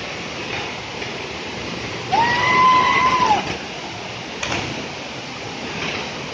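Steady rush of a waterfall, with one long, high-pitched call about two seconds in that rises, holds level for about a second, and drops away.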